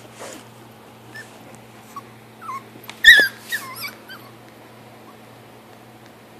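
Puppy giving short, high-pitched yips and whimpers while play-fighting, in a quick cluster about three seconds in, the loudest of them near the middle.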